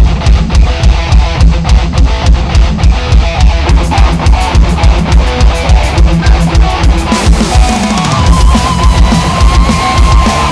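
Heavy metal music with fast, steady drumming and guitar. Near the end a low sound slides down and a single high note is held.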